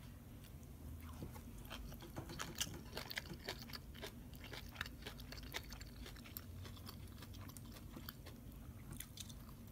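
Close-up crunchy chewing of raw long bean salad (Lao thum maak thua): a thick run of crisp crunches that thins out about six seconds in and picks up again near the end.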